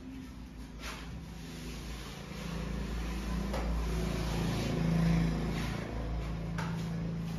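A steady engine-like hum that swells about five seconds in and then settles, with rough scraping of a plastering trowel being drawn over wet textured plaster.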